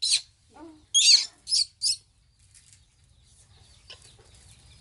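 Baby monkey giving shrill, high-pitched squeaks: one at the start, then three in quick succession about a second in, after which it goes quiet apart from faint rustling.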